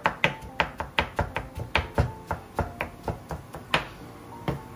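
Kitchen knife chopping zucchini on an end-grain wooden cutting board: quick, uneven knife strikes on the wood, about four or five a second, slowing slightly near the end.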